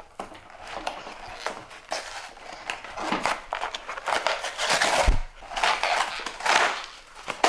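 Toy packaging being handled and pulled open, with irregular plastic and cardboard crinkling and scraping that gets louder in the middle, and a single low thump about five seconds in.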